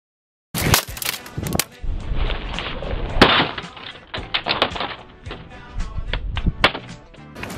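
A laptop being smashed against a hard floor: a rapid series of sharp cracking impacts with plastic pieces clattering, the loudest hit about three seconds in. A brief silence comes before it.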